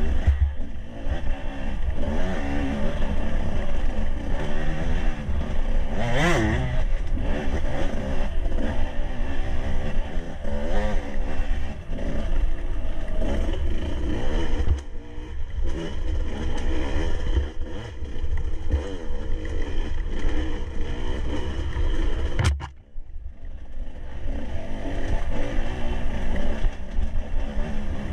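Enduro dirt bike engine revving up and down while riding a rough forest trail, with clatter from the bike over the bumps. About 22 seconds in there is a sharp knock, and the engine briefly drops off before picking up again.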